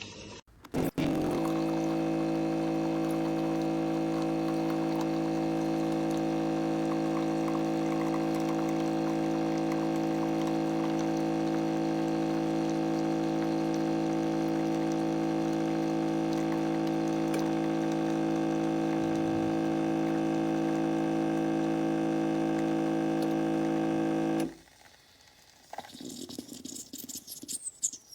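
Cecotec Power Instant-ccino coffee machine's pump humming steadily as it pushes water through to brew. The hum starts about a second in, holds for about 24 seconds and then cuts off.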